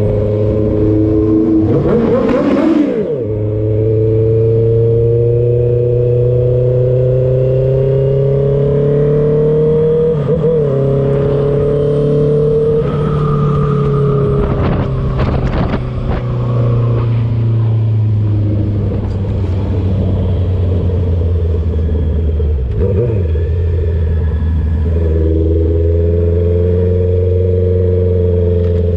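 Honda CB650R's inline-four engine running loud through a full Kleber Atalla exhaust with the dB killer removed, under way at a steady pace. The note holds and drifts slowly up and down. About two seconds in it dips and picks up again, as at a gear change.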